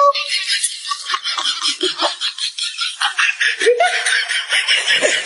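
Laughter: a long run of quick, repeated giggling pulses.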